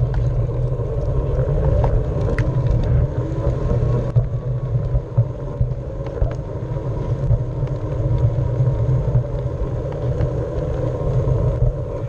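Onewheel electric board riding over pavement, heard from a camera on the board: a steady hum of the hub motor and tyre rolling, with a faint whine that rises and falls a little with speed and a few sharp knocks over bumps.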